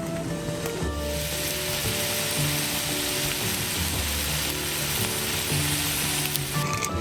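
Food sizzling as it fries on a hot pan or griddle, a steady hiss that starts about a second in and stops shortly before the end, with background music underneath.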